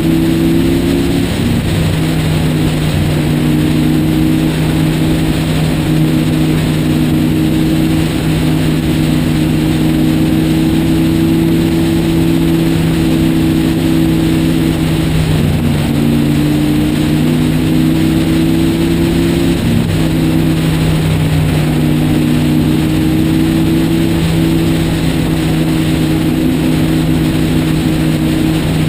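Motorcycle engine running steadily at highway cruising speed, with wind and road noise; its note steps slightly up or down a few times.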